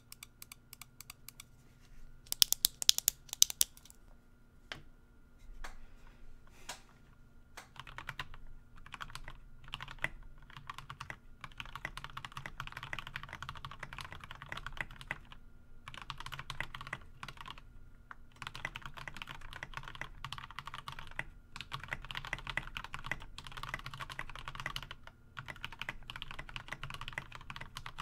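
Typing on a GK61 mechanical keyboard with lubed Milky Gateron Yellow linear switches and lubed, clipped, holee-modded stabilizers, a deep keystroke sound. A quick cluster of sharper, louder clicks comes about two to three seconds in. Scattered single presses follow, then steady continuous typing with a few short pauses.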